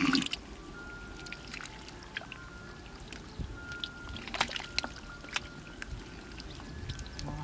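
Hands groping through mud and shallow water: small splashes and wet squelches, with a few sharper ones a little past the middle.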